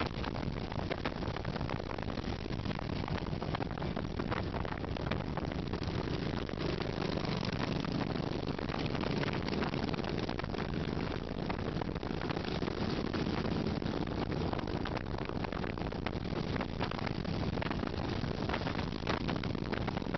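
A long column of cruiser and touring motorcycles riding past one after another, their engines blending into a steady low rumble that swells a little through the middle.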